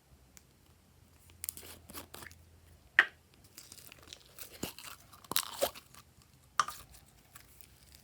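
Glossy slime being worked by hand, giving irregular sticky crackles with a few sharp pops, the loudest about three seconds in.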